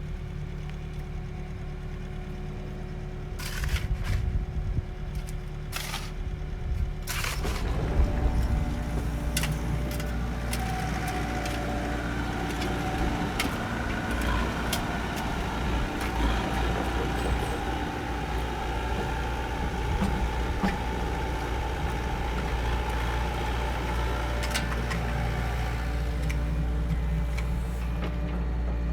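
Construction machine's diesel engine running steadily, with a few sharp knocks in the first seven seconds. From about seven seconds in it works harder, with many clanks and a wavering whine.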